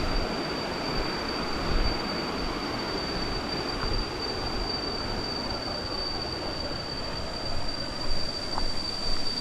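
Waterfall's water rushing steadily, with a thin high-pitched whine held throughout.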